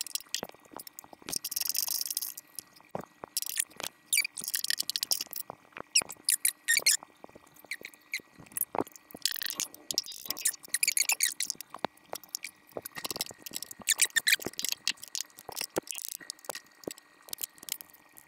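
A socket ratchet and wrench loosening a rusty control-arm pivot bolt: irregular ratchet clicks, squeaks and the clink of steel tools on metal.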